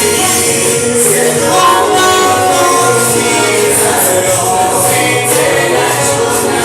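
Choir singing a gospel song with band accompaniment, over a steady beat of high-pitched percussion.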